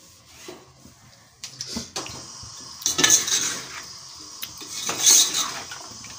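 Steel ladle scraping and clanking against the inside of an aluminium pot as chicken pieces are stirred in oil, the start of frying (bhuna) the chicken. Quieter for the first second or so, then repeated scraping strokes, loudest about three and five seconds in.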